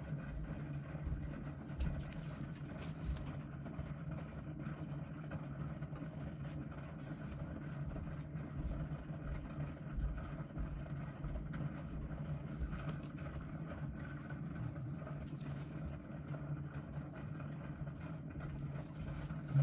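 A steady low hum of background noise, with a few faint small clicks.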